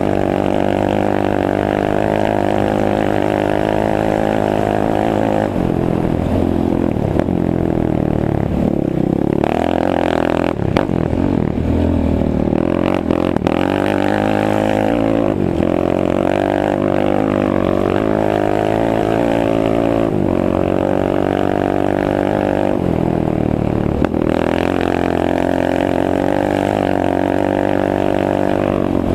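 Suzuki LTR 450 quad's single-cylinder four-stroke engine running hard at high revs. The pitch dips and climbs again as the throttle is backed off and reopened: once about six seconds in, repeatedly between about ten and thirteen seconds, and again near 24 seconds.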